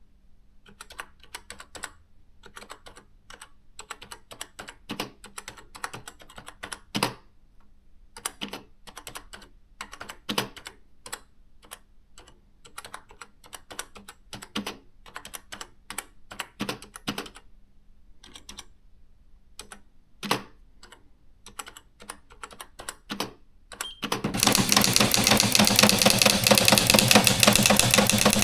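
Olivetti ET Compact 60 electronic typewriter being typed on: irregular light key clicks with short pauses over a faint steady hum. About 24 seconds in, a much louder, rapid, continuous rattle of the daisy-wheel print mechanism starts, striking characters in quick succession.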